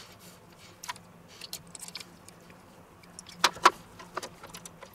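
Metal rotisserie spit and its holding forks clicking and clinking against a stainless steel tray while a raw chicken is skewered, with two sharp louder clicks about three and a half seconds in.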